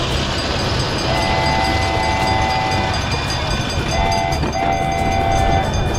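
Miniature railway train running along its track with a steady rumble and light wheel clicks, while a horn sounds three times: a long blast about a second in, a short toot, then a longer blast near the end. The horn plays two close notes together.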